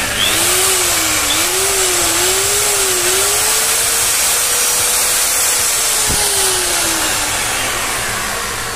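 A freshly repaired 600-watt Bosch GWS 600 angle grinder running free without a disc: a steady high motor whine with no grinding or rattling, the sign that its new bearing and gear are fitted properly. Near the end the pitch and level start to fall as it begins to wind down.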